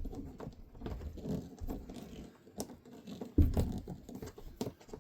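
Irregular clicks, taps and scrapes of hands working parts of an RV toilet's water valve and lines back into position, with one heavier knock about three and a half seconds in.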